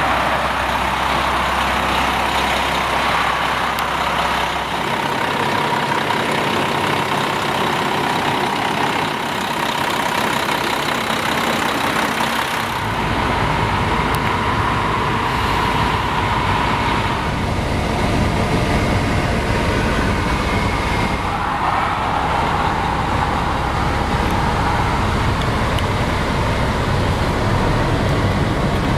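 Peterbilt 384's Cummins diesel idling steadily, a continuous low running noise with a faint steady whine; the sound shifts twice in the first half.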